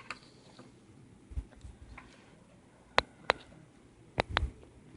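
Small plastic earphone cable clip being handled, giving sharp clicks: two about three seconds in and two more about a second later, after a soft low thump.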